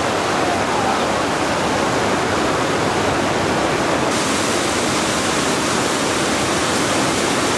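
River whitewater rapids rushing steadily. The rush gets brighter and hissier about four seconds in.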